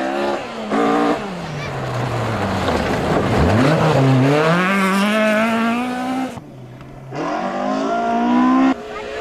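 Ford Escort rally car's engine revving hard on a gravel stage: its pitch drops as it slows for a corner about three seconds in, then climbs again in steps through the gears, over a hiss of tyres on gravel. The sound breaks off abruptly about six seconds in and again near the end, where the footage cuts.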